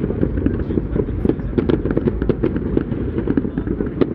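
Aerial fireworks display going off: a dense, continuous run of booms and crackling bangs in quick, irregular succession.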